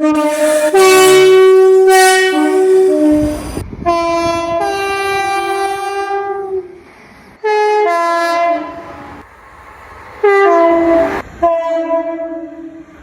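ScotRail Class 334 Juniper electric multiple unit horns sounding about five loud blasts in a row, each sliding between a higher and a lower note in the usual two-tone pattern, with abrupt cuts between clips. A low rumble of the train running sits under the middle blasts.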